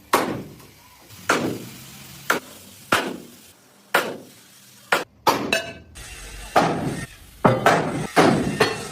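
Hammer blows on a wheel rim: about a dozen sharp strikes, each with a short ring, coming unevenly, some in quick pairs in the second half.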